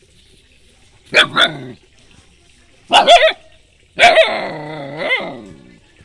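Young dog barking at a turtle: a quick pair of barks, another pair, then one longer drawn-out bark.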